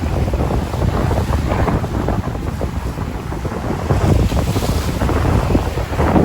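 Sea waves washing on a shore with wind buffeting the microphone: a heavy low rumble with crackling gusts, swelling a little past the middle.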